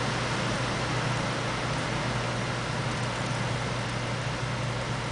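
Heavy wind-driven rain of a severe storm pouring down, a steady loud noise with a deep low rumble beneath it.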